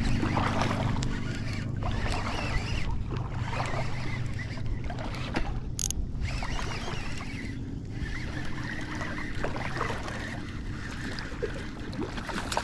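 Water moving against a fishing kayak's hull, with a low steady hum that fades over the first couple of seconds and one sharp click about six seconds in.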